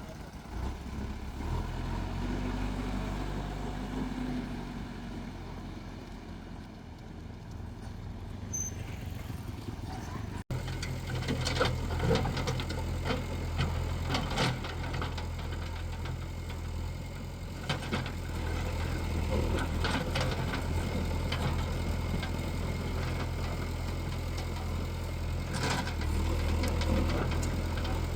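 A JCB excavator's diesel engine running steadily, with several sharp knocks from the machine's work after it gets louder about ten seconds in.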